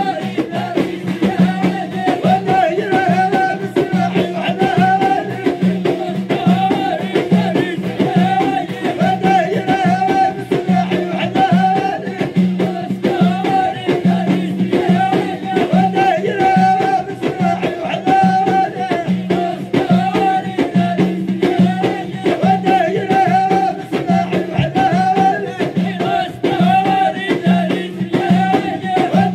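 Live traditional Moroccan music: a troupe beating hand-held frame drums in a steady repeating rhythm, with a wavering sung melody over it, amplified through the stage PA.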